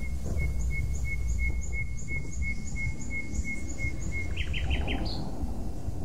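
A bird calling a steady run of short high notes, about three a second, that ends about four seconds in with a quicker burst of four notes and one higher note, over a steady low rumble.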